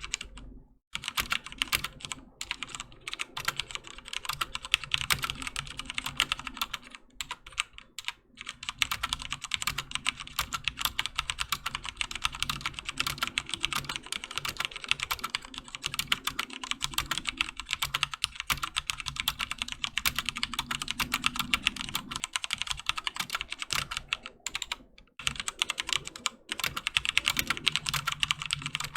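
Continuous fast typing on a HyperX Alloy FPS Pro mechanical keyboard with linear Cherry MX Red switches: rapid key clacks with a few brief pauses.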